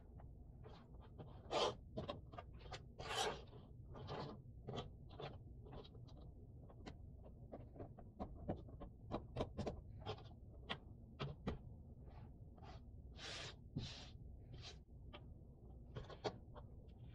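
Cardboard jigsaw puzzle pieces being handled on a tabletop: frequent light clicks and taps as pieces are picked up and set down, with a few short scrapes as pieces slide across the surface.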